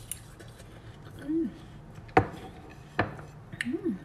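Two sharp clacks of a fork and china plate against a stone countertop, less than a second apart, as a plate of watermelon is set down. Short hummed "mmm" sounds of enjoyment come before and after them while she eats the watermelon.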